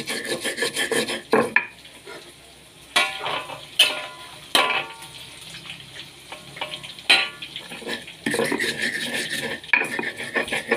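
Stone pestle grinding on a flat stone mortar (cobek), crushing chilies and garlic in fast rubbing strokes. The grinding pauses in the middle, where a few sharp knocks of stone on stone are heard, and then resumes near the end.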